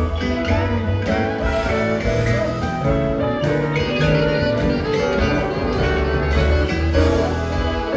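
A live rock band playing, with guitars over a steady bass line.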